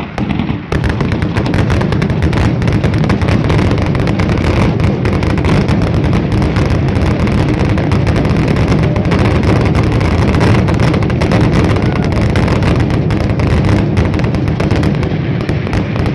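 Fireworks grand finale: a dense barrage of aerial shell bursts, sharp bangs overlapping so closely that they merge into a near-continuous booming rumble. The barrage swells to full strength just under a second in.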